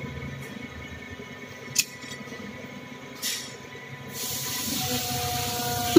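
Hydraulic press brake running with a steady hum, with a light click or two as a steel plate is set against the back gauge. From about four seconds in a hiss rises from the hydraulics, ending in a sharp clank near the end.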